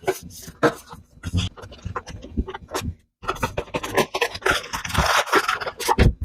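Packaging being handled: a series of clicks and knocks, then from about halfway a denser rustling and scraping as the box and wrapping are worked.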